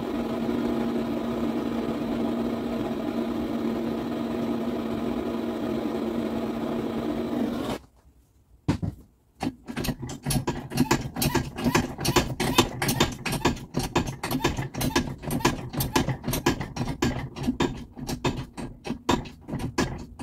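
Bosch Maxx 6 washing machine running with a steady motor hum for about eight seconds, which then cuts off. After a short pause comes a fast, uneven clatter of sharp knocks and clicks.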